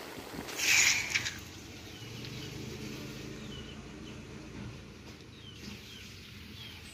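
Faint outdoor background with a few small bird chirps. A short burst of hissing noise comes about half a second in.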